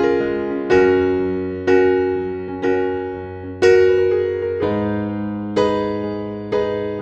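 Background music: a keyboard playing slow chords, about one a second, each struck and left to fade.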